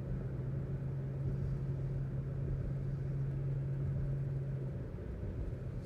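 Car engine and road noise heard from inside a moving car: a steady low hum over a rumble, the hum dropping away near the end.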